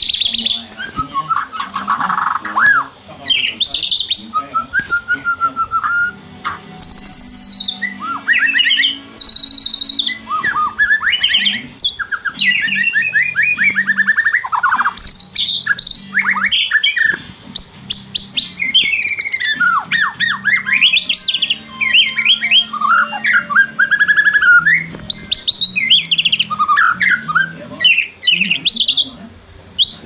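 White-rumped shama (murai batu) in full song: loud, rapid, varied phrases of clear whistles, fast trills and chattering note runs, with short pauses between phrases.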